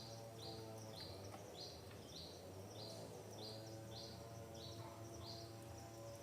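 A bird calling one short, high note over and over, about two a second, stopping about five seconds in, over a faint steady low drone.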